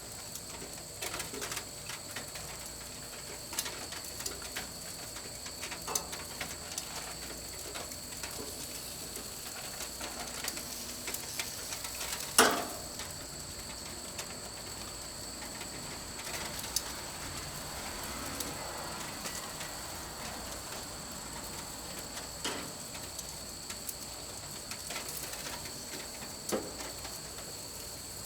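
Steady high-pitched whine under scattered light clicks and taps, with one sharp knock about twelve seconds in.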